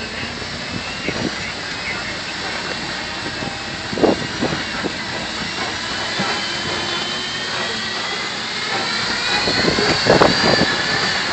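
Safari truck driving along a rough dirt road: steady engine and road noise with a thin high whine above it. There are a few brief louder bumps, around four and ten seconds in.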